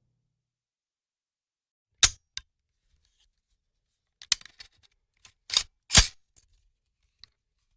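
Rifle being handled and cocked: a series of short, sharp clicks, two about two seconds in, then a quick run of them between four and six seconds in, the loudest at the end of the run.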